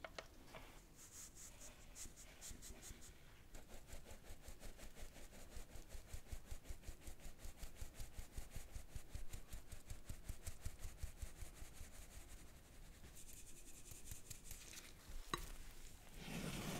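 Fine-mesh sieve shaken over a glass bowl, sifting almond powder and powdered sugar onto meringue: a fast, even scratchy rhythm. Near the end a single click, then a rubber spatula scraping and folding the mixture in the bowl.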